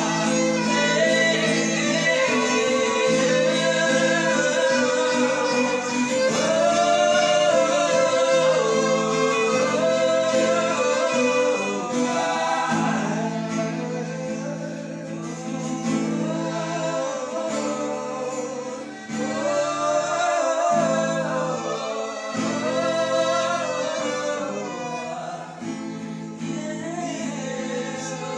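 Gospel worship song: a woman singing a wordless, gliding melody over guitar and violin accompaniment.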